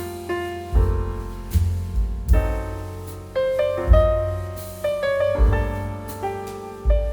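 Background music: a piano piece with deep bass notes, a chord or note struck about every half second to a second, each fading away before the next.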